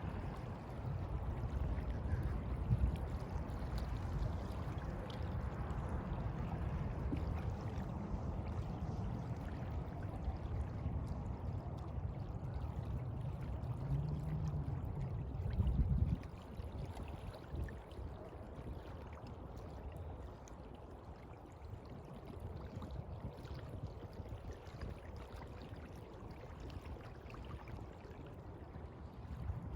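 Sea water washing and sloshing, with a heavy low rumble under it that falls away about halfway through.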